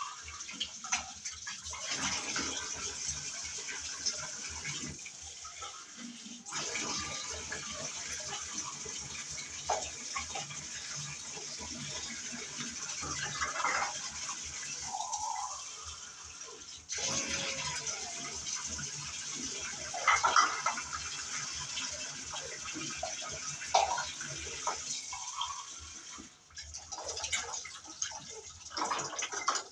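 Water running and splashing into a plastic washing basin as dishes and cups are rinsed by hand, with occasional clinks of utensils against each other.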